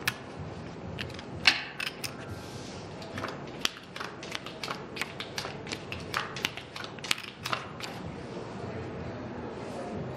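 Playing cards being gathered up and dealt onto a felt blackjack table: a string of sharp clicks and light slaps, with one louder snap about a second and a half in, over steady low background noise.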